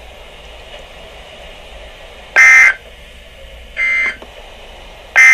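Emergency Alert System end-of-message data bursts: three short, buzzy digital tone bursts about a second and a half apart, the second one quieter, over steady radio hiss.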